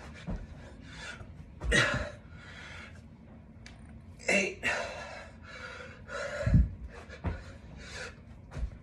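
A man panting hard through dumbbell burpees with curl and press, short breaths in and out about twice a second. Several dull thumps from the floor land among the breaths, the loudest about two-thirds of the way through.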